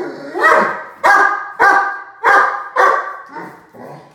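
Five-month-old Great Dane puppy barking in a steady run: about five loud barks a little over half a second apart, then a couple of fainter ones near the end.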